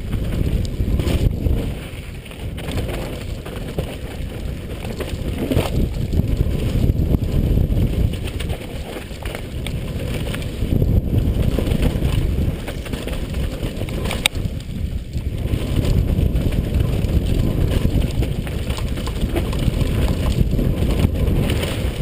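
Downhill mountain bike ridden fast down a dirt forest trail, heard from a helmet-mounted camera: a steady, loud rush of wind on the microphone and tyres rolling over dirt. A few sharp knocks from the bike hitting bumps.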